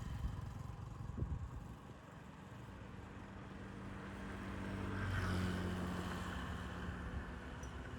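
Motor vehicle engine hum in the background, swelling as it passes about halfway through and then fading a little.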